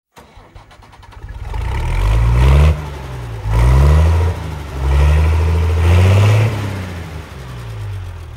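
A vehicle engine accelerating: its pitch climbs, drops back and climbs again about four times, like a vehicle pulling away through its gears, and it eases off near the end.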